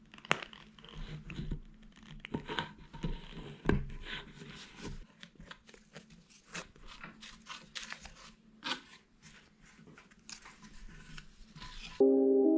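Small scratchy clicks and scrapes from gluing up boards: white wood glue squeezed from a plastic bottle along a board edge and spread with a small stick. Music comes in near the end.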